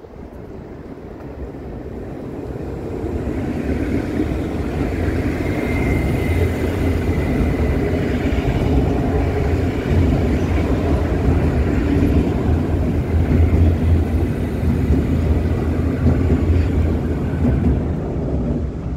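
Passenger train crossing a steel truss railway bridge: a low rumble that builds over the first few seconds and then holds loud, with a faint thin metallic whine about six seconds in.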